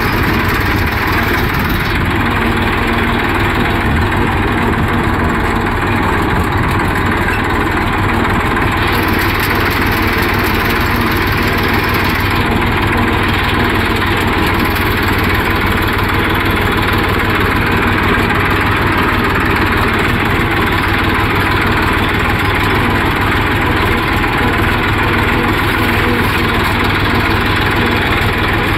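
Farm tractor's diesel engine running steadily as the tractor drives along, heard close up from the driver's seat.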